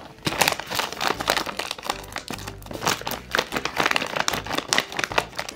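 Paper crinkling and rustling in quick, irregular crackles as a handmade paper blind bag is handled.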